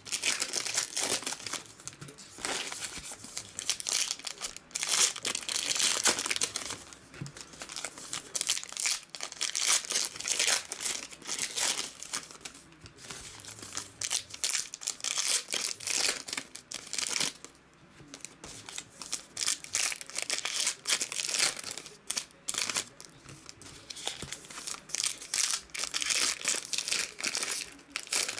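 Foil wrappers of Panini Revolution basketball card packs being crinkled and torn open by hand. The crackling comes in irregular bursts, with brief lulls between packs.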